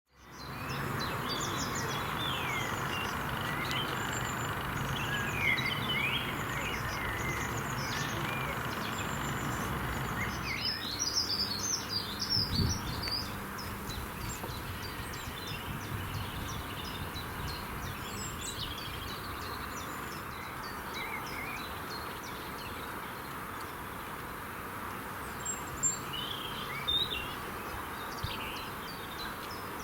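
Several wild birds singing and calling over a steady background hiss, with a busy cluster of high chirps about ten to thirteen seconds in and another brief burst near the end.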